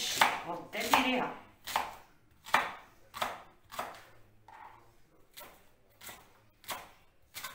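Kitchen knife chopping vegetables on a cutting board in a slow, steady rhythm, about three strokes every two seconds.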